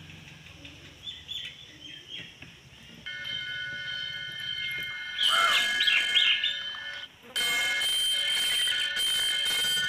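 Small birds chirping and twittering, over steady high whistle-like tones. The tones break off and come back louder about seven seconds in.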